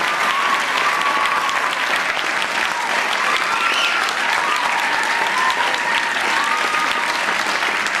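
Audience applauding: dense, steady clapping.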